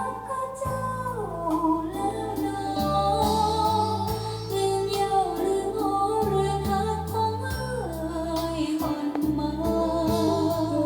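A song with a singing voice over a stepping bass line, played back from CD through Polk RTi A3 bookshelf loudspeakers.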